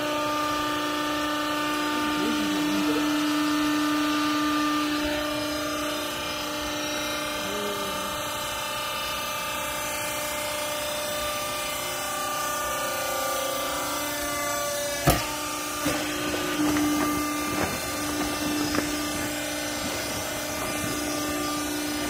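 Hydraulic power unit of a lift-chamber textile baler running with a steady hum while the baling chamber rises off the bale. A sharp knock about 15 seconds in, then a few lighter knocks.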